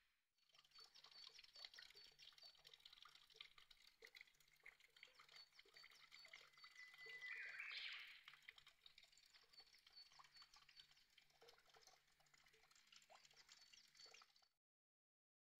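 Near silence: faint forest ambience with distant high bird calls, one slightly louder trill about halfway through.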